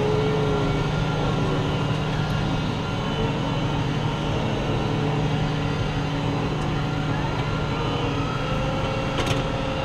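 New Holland T7.245 tractor's six-cylinder diesel engine running steadily at an even pace, heard from inside the closed cab.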